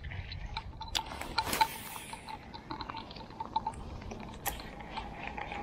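Fishing reel being cranked fast to retrieve a chatterbait, with scattered mechanical clicks and creaks and a faint steady whir. A brief rushing noise comes about a second and a half in.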